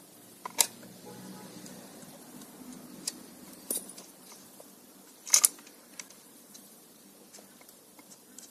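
Handling clicks and knocks as the side sprocket cover of a GoodLuck GL4500C chainsaw is taken off. There are a few sharp separate knocks, the loudest about five seconds in, over faint rustling handling noise.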